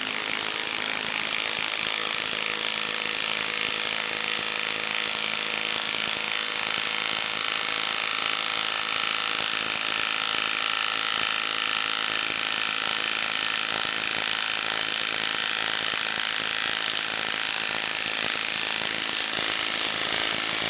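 Milwaukee M12 Stubby 1/2-inch cordless impact wrench hammering steadily at speed 3, driving a 6-inch lag screw into a solid wood round.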